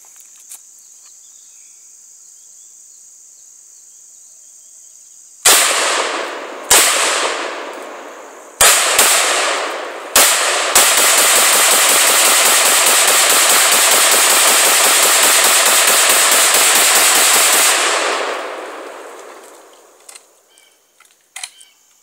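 Yugo M92 AK pistol in 7.62x39 firing Tula ammunition: five single shots spaced one to two seconds apart, each ringing out. Then a rapid string of shots that lasts about seven seconds and ends abruptly, emptying the 40-round magazine.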